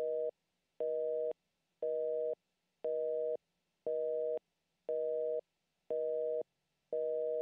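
Telephone busy signal: a two-tone beep about half a second long, repeating once a second with equal silences, a sign that the line is engaged.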